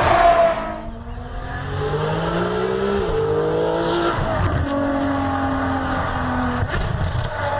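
Ferrari 599 GTO's 6.0-litre V12 engine pulling hard through the gears. Its note is loud at first and eases off within the first second. It then rises in pitch, drops sharply at an upshift about three seconds in, climbs again, and holds steadier before falling away near the end.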